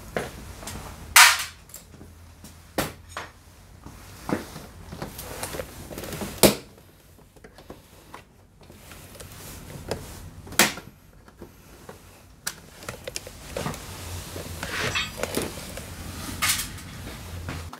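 Sharp plastic clicks and knocks, a few loud snaps among smaller ones, as hand tools work the clips and plastic body panels around a Honda PCX 125 scooter's seat storage compartment. A steady low hum runs underneath.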